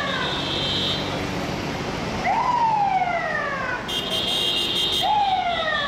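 FDNY fire truck siren sounding in repeated sweeps, each jumping up quickly and then falling slowly, about every three seconds. A steady high-pitched tone joins about four seconds in.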